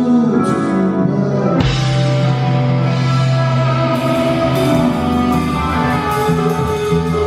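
Background music: a rock song with guitar, changing to a fuller section about two seconds in.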